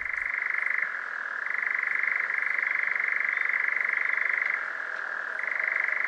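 European nightjar churring its mating song: a long, monotonous, mechanical trill like a spinning wheel, which shifts slightly in pitch a couple of times.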